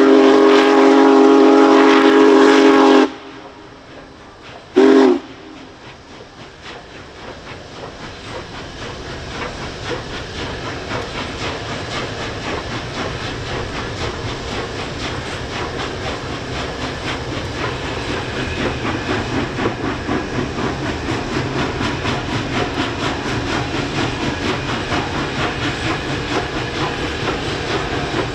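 Union Pacific Big Boy No. 4014's steam whistle blowing one long chord of about three seconds, then a short toot. Then the locomotive and its train rolling across a steel trestle bridge, a rumble with a fine rhythmic clatter that builds steadily louder.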